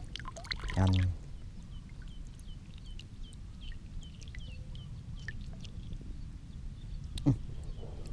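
Handling noise as a small red tilapia is unhooked by hand, over a steady low rumble of wind on the microphone, with faint high chirps repeating in the background. A short voice sound comes about a second in and a sharp click near the end.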